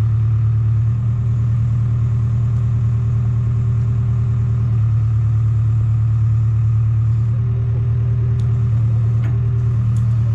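An engine running steadily at a constant speed, a low even drone, with a few faint clicks near the end.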